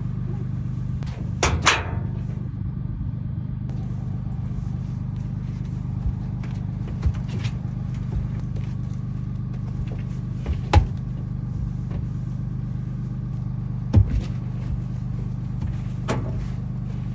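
A vehicle engine idling steadily with a low hum, with a few sharp knocks and thumps on the metal stock trailer, a double knock about a second and a half in and single ones later.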